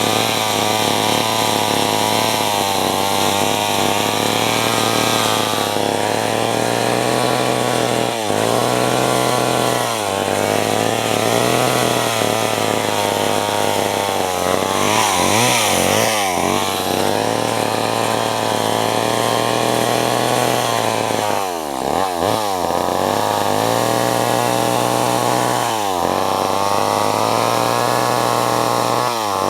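Vintage Homelite two-stroke chainsaw running hard, its engine pitch sagging and climbing back again several times through the stretch as it works.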